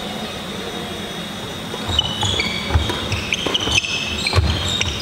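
Badminton rally on a wooden sports-hall floor, starting about two seconds in: shoes squeaking, feet thudding and the sharp clicks of rackets hitting the shuttlecock.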